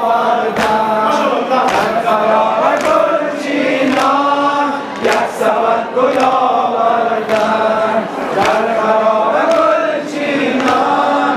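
A group of men chanting a Shia mourning lament in unison, with rhythmic chest-beating (sineh-zani) strikes about twice a second.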